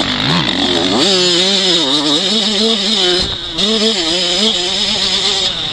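Yamaha 85cc two-stroke motocross bike's engine revving hard under way, heard onboard, its pitch climbing steeply about a second in and then rising and falling with the throttle. The revs drop briefly about three seconds in before picking up again.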